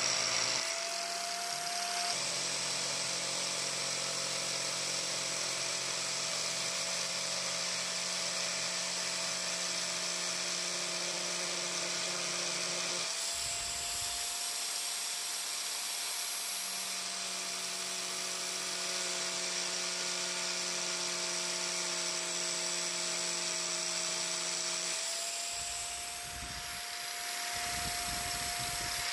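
Handheld angle grinder running steadily, its spinning disc grinding grooves into a wooden hiking-stick handle to carve a diamond grip pattern. The motor's whine steps up slightly in pitch about halfway through and again near the end.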